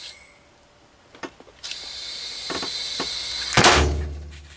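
Compressed air hissing into a kerb-damaged moped tyre in two spells, then the tyre bursts at 2.5 bar with a sudden loud bang about three and a half seconds in. A low rumble follows and trails off over about a second.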